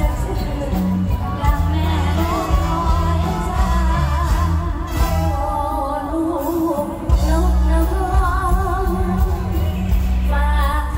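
Live mor lam (Isan Thai folk-pop) music: a woman sings into a microphone over an amplified band with a heavy, sustained bass.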